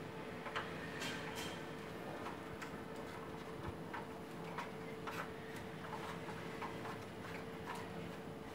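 Irregular light clicks and taps of plastic water fittings being handled and screwed onto the inlet of a Panasonic instant water heater, over a steady hum.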